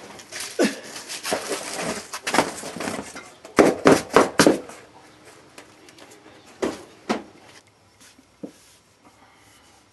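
Cardboard and loose items being picked up and shifted on a garage floor: a quick run of rustles, scrapes and knocks, loudest about four seconds in, then a few single knocks.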